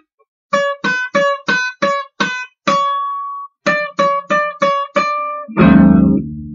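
Country-style music on a plucked string instrument. After a brief silence it plays a quick run of single plucked notes, one longer ringing note, then another quick run. About a second before the end a louder, fuller passage with bass comes in.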